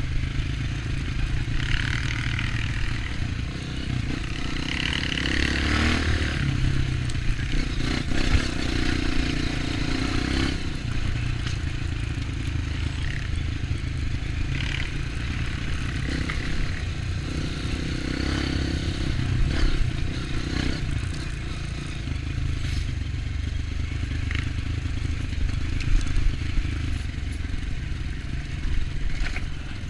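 Off-road motorcycle engine running steadily under way on a dirt trail, the engine note rising and falling with the throttle, with occasional clatter and knocks from the bike over rough ground.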